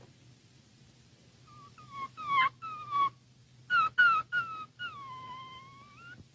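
A series of high-pitched whimpering whines: a few short cries, then one longer whine that dips and rises again at its end.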